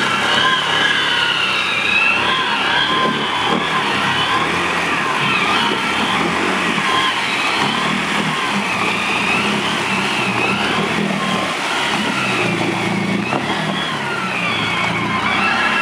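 Can-Am ATV engine revving hard, its pitch rising and falling repeatedly as the throttle is worked.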